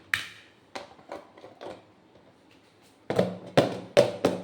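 Plastic lid being pressed onto a plastic fridge storage box: a few sharp clicks and knocks, a pause, then a quicker run of knocks and snaps as it is closed and handled.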